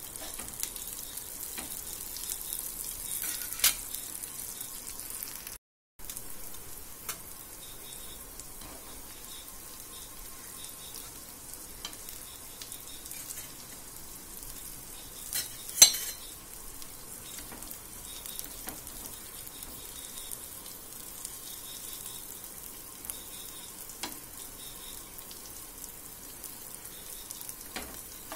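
Shallots, garlic and then dried fish sizzling and spitting in hot oil in a flat pan, stirred with a metal spatula, with scattered light ticks. A sharp knock about sixteen seconds in is the loudest sound, and the sound cuts out for a moment near six seconds.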